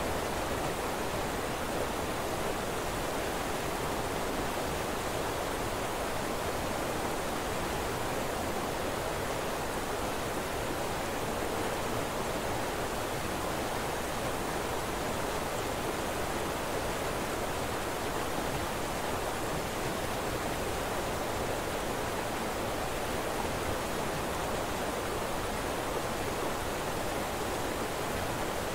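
Steady, unchanging rushing noise: the masking sound of a subliminal track, laid over affirmations that are mixed in too quietly to stand out.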